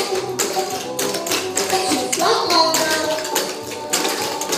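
Clogging shoe taps striking a wooden parquet dance floor in a quick, steady rhythm of footwork, over recorded music.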